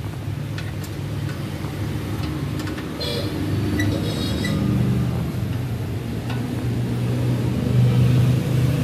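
A steady low mechanical rumble, with a few light metallic clicks and pings from a T-handle wrench and spanner working the motorcycle's exhaust mounting bolts.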